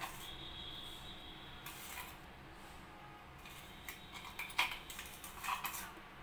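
A few light knocks and scrapes as thick nut paste is tapped and scraped out of a mixer-grinder jar into a pan of milk, the sharpest knock about four and a half seconds in.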